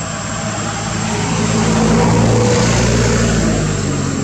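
Engine of a passing motor vehicle: a low hum that grows louder to a peak about two seconds in, then fades.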